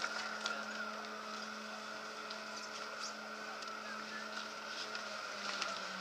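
A steady mechanical hum with a few faint clicks; its pitch shifts slightly about five seconds in.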